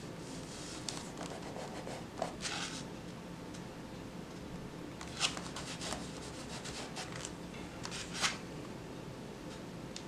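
A Gelatos water-soluble crayon stick rubbed over the paper of a coloring book page: scratchy rubbing strokes, with a few sharper scrapes or taps scattered through.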